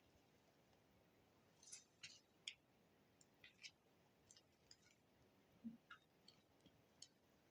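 Near silence with a dozen or so faint, short, high-pitched clicks and ticks at irregular intervals.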